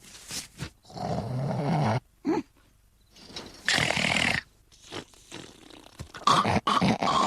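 Loud cartoon snoring in irregular bursts: a long, low snore about a second in, a hissier snore near the middle, then several short snorts near the end.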